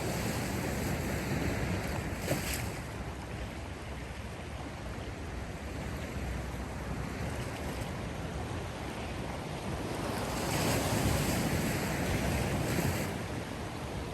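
Sea waves washing onto the shore, a steady rushing surf that swells twice, briefly about two seconds in and louder between about ten and thirteen seconds as a bigger wave comes in.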